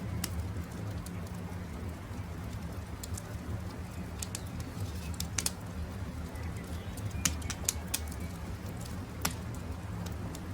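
Campfire crackling, with sharp irregular pops and snaps over a steady low rumble, while birds call softly in the background.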